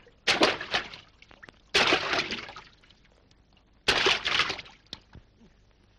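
Water poured from a vessel in three separate splashes about two seconds apart, each starting suddenly and dying away, as in a bucket bath.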